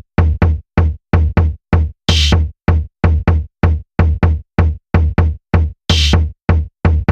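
Background electronic music with a steady drum-machine beat, about three short beats a second, and a cymbal-like crash twice, about two and six seconds in.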